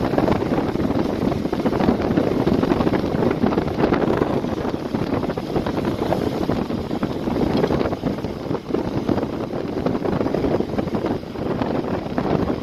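Road and wind noise from a car moving at speed: a steady, even rushing with wind buffeting the microphone.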